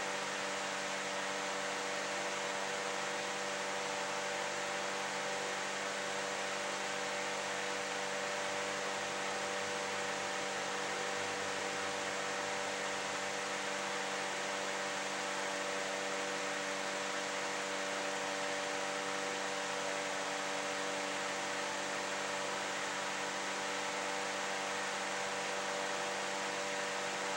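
Steady background hiss with a constant low electrical hum under it, unchanging throughout, with no distinct sounds on top.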